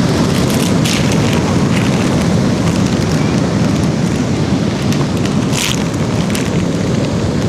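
Steady, loud rushing noise of ocean surf and wind buffeting the microphone, with a few short hissing washes.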